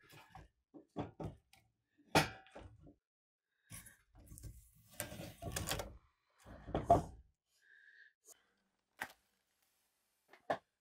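Split kindling being stacked by hand into a small cast-iron wood stove's firebox: pieces of wood knocking and clattering against each other and the iron, in scattered knocks through the first seven seconds. A match is struck near the end.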